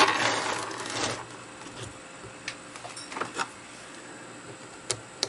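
Small steel parts of a dismantled 3-jaw lathe chuck being handled: a noisy scrape lasting about a second, then a few light metal clicks as a screwdriver goes to the small screw that holds the pinion in place.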